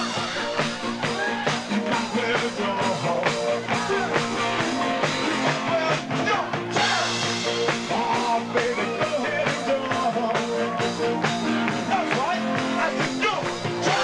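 Live dance band playing, with a singer and a steady drum beat.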